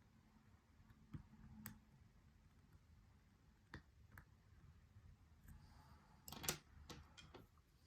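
Faint, scattered clicks of lock picks working the pins of an Abus 83/45 padlock, with a short cluster of sharper clicks near the end.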